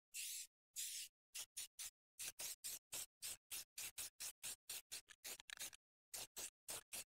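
Rust-Oleum aerosol spray-paint can spraying in short hissing bursts: a few longer sprays at first, then rapid short pulses about four a second, with a brief pause near the end.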